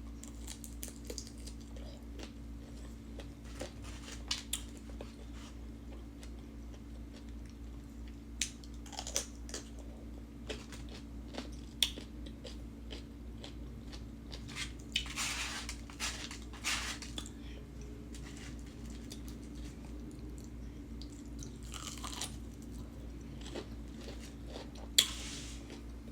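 A person chewing and biting into fried shrimp and fries close to the microphone, with scattered crunches and smacks at irregular moments, over a steady low hum.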